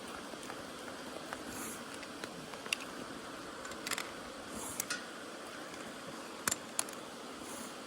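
Scattered light clicks and small knocks from handling a bicycle wheel and tools during a puncture repair, a few seconds apart, over a steady outdoor hiss.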